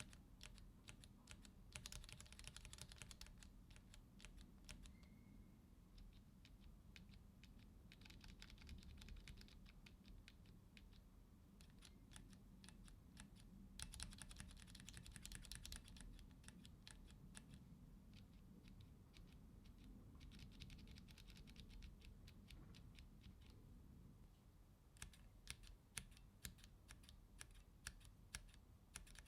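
Typing on a mechanical keyboard with Cherry MX linear switches: Red switches at first, Grey (linear) switches from about a third of the way in, and Black switches near the end. Quick runs of keystrokes come in short bursts with pauses between.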